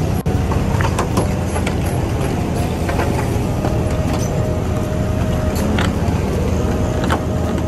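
Heavy truck's diesel engine running hard under load as it tries to climb a steep, muddy slope. Scattered sharp clicks and knocks come through over the steady rumble.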